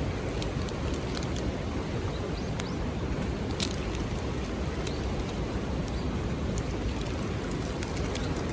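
Wood campfire crackling, with irregular sharp pops, over a steady low rushing noise.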